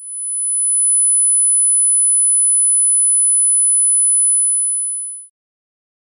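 A pure 10,000 Hz sine test tone for checking hearing and speakers. It fades in over about a second, holds steady, then fades out and stops about five seconds in.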